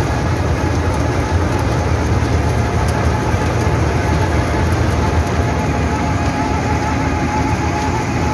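Wirtgen W 100 H cold milling machine working under load: a steady diesel engine drone mixed with the continuous grinding noise of the milling drum cutting into the asphalt road surface, with a thin steady whine over it.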